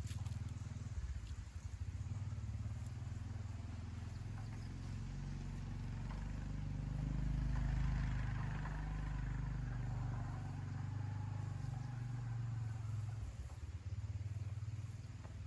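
A small engine running: a low hum that changes in pitch and level and grows loudest about eight seconds in.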